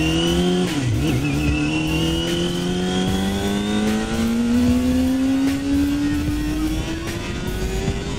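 Yamaha ZeaL's 250cc inline-four engine running through a custom-made exhaust under way. It shifts up just under a second in, then pulls with its pitch rising steadily in the next gear.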